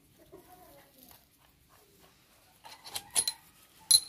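A few sharp metallic clinks with a brief ringing, from steel differential parts of a tractor's crown wheel and pinion assembly knocking together as they are handled. The clinks come after a quiet couple of seconds, and the loudest is at the very end.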